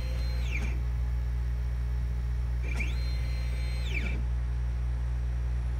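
The stepper motor of a DIY laser cutter's axis drives a white plastic pinion along a wooden rack, whining in the way typical of a stepper motor. The whine rises in pitch as it speeds up, holds steady, then falls as it stops. One move ends just under a second in, and a second move runs from about two and a half seconds to about four seconds. A steady low hum runs underneath.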